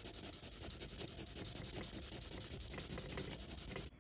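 Sanding stick rubbed rapidly back and forth over a small painted part, a dense run of quick scratching strokes that stops abruptly near the end.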